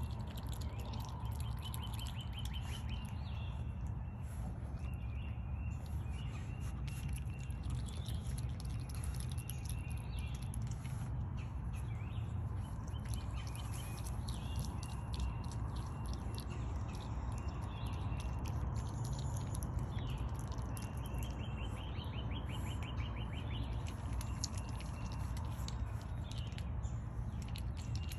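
Asian small-clawed otter chewing chicken breast with a steady stream of wet smacking clicks, broken several times by short runs of rapid high chirps, over a steady low rumble.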